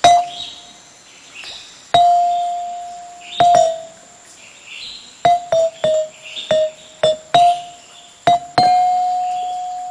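A slow, sparse melody of single struck notes moving between two close pitches, each ringing and fading, the last one held for over a second. Birdsong chirps underneath.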